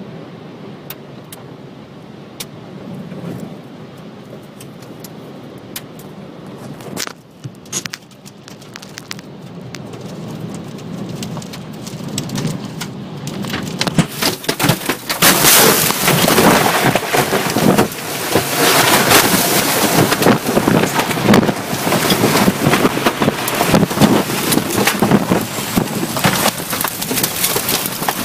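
Rain striking a car's windshield and roof, heard from inside the car. At first there are scattered drop hits over a low hiss; about halfway through a sudden, much louder downpour sets in, dense with rapid sharp hits.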